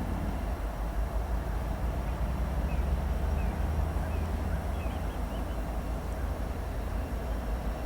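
Norfolk Southern freight oil train rolling past with a steady low rumble. A few short high chirps come in the middle.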